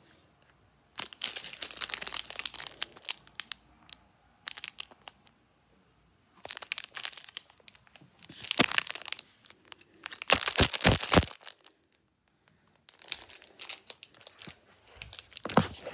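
Plastic snack pouch crinkling as it is handled, in several bursts of rustling with short pauses between them.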